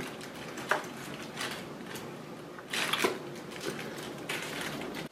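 Rustling and handling of fabric and packaging as a black knit sock boot is unwrapped and pulled out: a few short soft swishes, the loudest about three seconds in.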